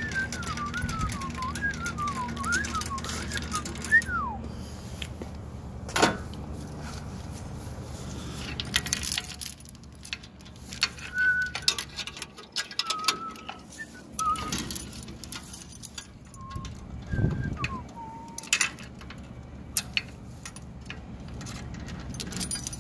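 A person whistling a wandering tune for the first few seconds, with a few more short whistled notes later. Scattered metal clanks and chain rattles come as the trailer hitch and its steel safety chains are handled.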